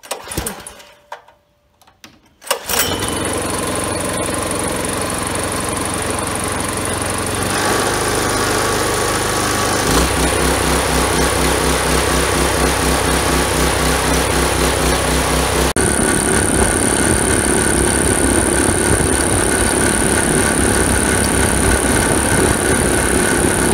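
Small single-cylinder gasoline engine being started, with a few short sounds before it catches about two and a half seconds in, then running steadily while it drives a piston air-compressor pump that is building pressure in the tank. The sound grows louder and more even around eight and ten seconds in, and a steady high whine joins it about sixteen seconds in.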